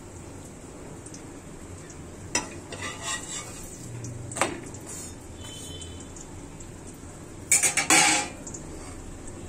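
Metal cooking utensils knocking and clinking against a pan: a few light single knocks, then a louder quick run of clinks near the end.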